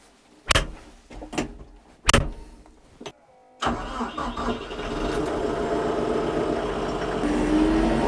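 A few sharp clunks, then the TYM 754 tractor's diesel engine starts about three and a half seconds in and runs steadily, getting slightly louder as it warms up.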